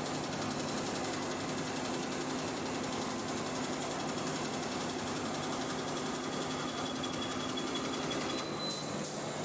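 Multi-head Barudan embroidery machine running, its many heads stitching at once in a steady mechanical rattle over a low hum.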